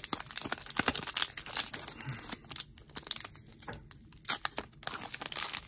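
Foil Pokémon booster pack wrapper being torn open and crinkled by hand, a run of irregular crackles and rips.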